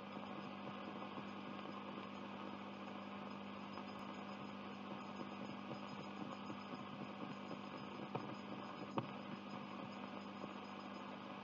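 Steady hum and hiss from a Graflex 16 mm film projector running blank leader, with two faint clicks in the last few seconds.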